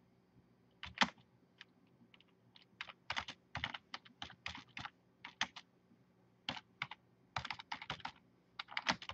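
Typing on a computer keyboard: irregular bursts of keystrokes with short pauses between them.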